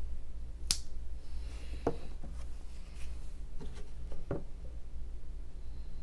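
Case Barlow two-blade slip-joint pocket knife blade snapping shut with one sharp click about a second in, followed by a few fainter clicks and taps of handling.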